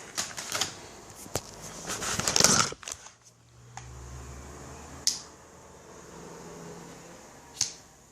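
Packaging being handled during an unboxing: rustling and crinkling with a quick run of clicks for the first three seconds, loudest near the end of that stretch. Then it goes quieter, with a faint low hum and two single sharp clicks, about five and seven and a half seconds in.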